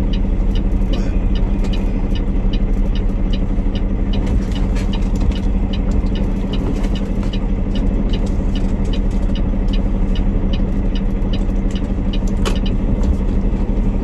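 Semi-truck's diesel engine running at low speed, heard inside the cab as a steady low hum, with a light regular ticking at about three a second over it. A single sharp click sounds near the end.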